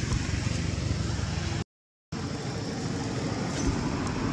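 Steady low rumble of outdoor background noise, dropping out to dead silence for about half a second just under two seconds in.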